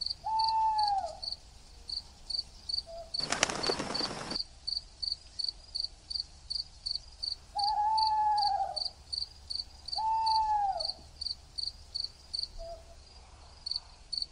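Night ambience of crickets chirping in an even pulse, about two or three chirps a second. Three drawn-out pitched calls that arch and fall sound over it, at the start and twice past the middle, and a burst of noise lasting about a second comes about three seconds in.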